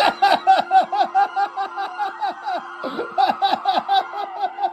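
High-pitched cartoon snickering: a quick, even run of short falling syllables, about six a second, with a brief break about three seconds in.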